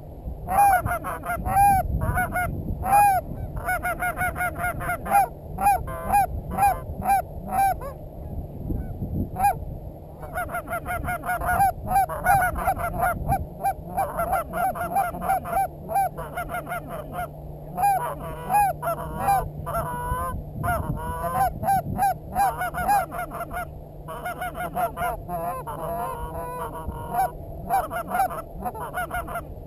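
Goose honking and clucking in quick, loud runs of calls, with a couple of brief pauses, the calling that goes on as geese come in to the decoys.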